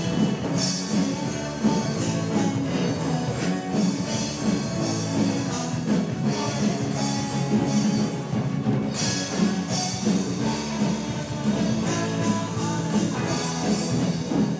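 Live rock band playing: electric guitars, bass guitar and drum kit in a steady rock beat. The cymbals drop out briefly a little past the halfway mark, then come back in.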